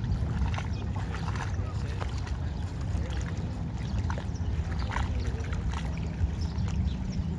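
Small waves lapping at a muddy shoreline under a steady low rumble of wind on the microphone, with short, scattered bird calls.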